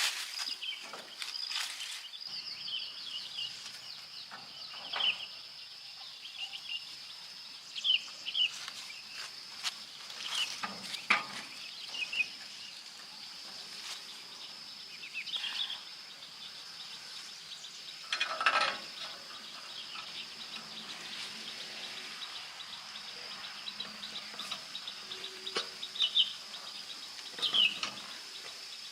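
A steady high insect drone, with scattered short clicks and knocks and a few brief chirps over it.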